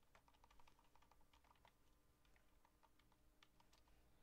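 Faint typing on a computer keyboard: quick, irregular keystrokes, sparser in the middle.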